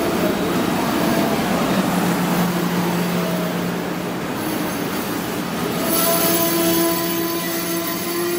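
Amtrak bilevel passenger cars rolling past on the track, wheels rumbling with steady squealing tones that grow stronger about six seconds in.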